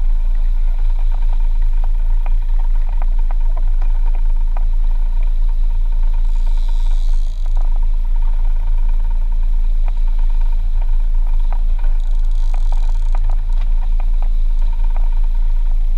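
Fishing boat's engine running at a steady low drone, with scattered light rattling clicks and two brief hisses about six and twelve seconds in.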